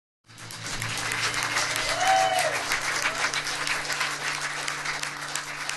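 Audience clapping and applauding, with a short cheer about two seconds in, over a steady low hum.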